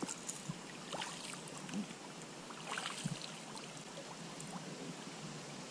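Faint water sounds around an inflatable boat drifting on a slow river, with a few light clicks about a second and three seconds in.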